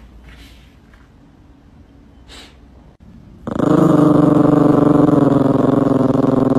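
Yorkshire terrier growling with its head down in a floor vent: a loud, continuous, steady-pitched growl that starts suddenly about three and a half seconds in.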